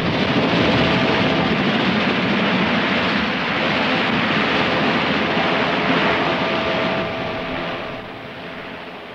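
Sikorsky S-64 Skycrane helicopter's twin turbine engines and rotor running, a loud steady rushing noise with a faint whine in it, growing quieter over the last second or two.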